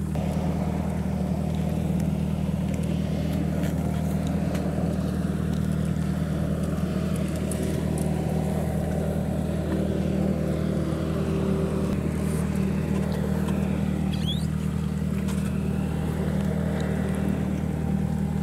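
Jet ski engine running steadily at low speed, an even drone.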